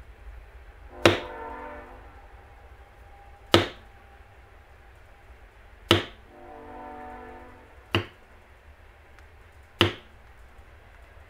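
Mallet tapping a leather bevelling tool along the tooled outline: five sharp, separate taps about two seconds apart.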